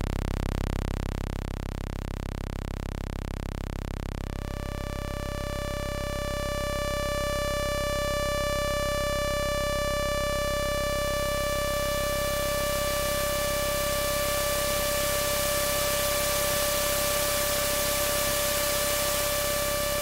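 MFOS Sound Lab Mini-Synth in its Eurorack version: after a low hum, an oscillator's steady pitched tone comes in about four seconds in. From about ten seconds in, hiss from the synth's noise generator is turned up in the mixer and grows under the tone.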